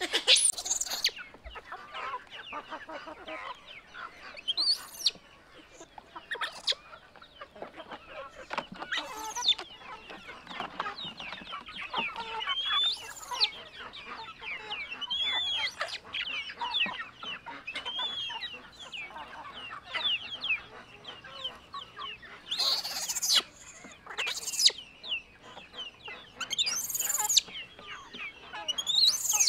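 Chickens clucking and calling in short, irregular bursts, with several brief high-pitched shrieks near the end.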